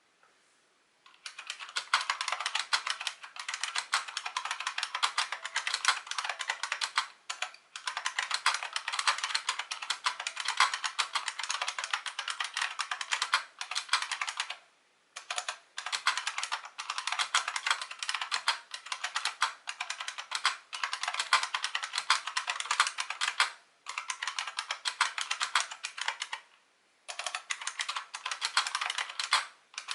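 Fast typing on a new-old-stock 1992 IBM Model M SSK keyboard with buckling-spring switches and one-piece PBT keycaps: a dense stream of key clicks in long runs, broken by a few short pauses.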